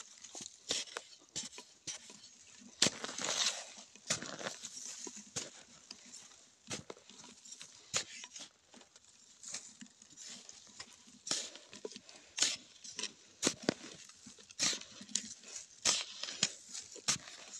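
A metal spade chopping and scraping into dry, sandy soil in irregular strokes, with loose earth crumbling and falling between them.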